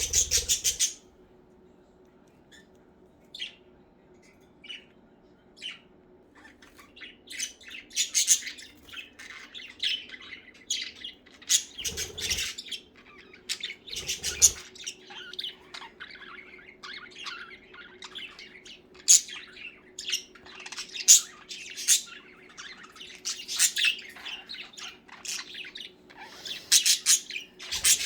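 Pet budgerigars chirping, a few single chirps at first, then from about six seconds in a continuous budgie warble of fast chatter with loud squawky notes. A faint steady hum runs underneath, with two soft low thumps partway through.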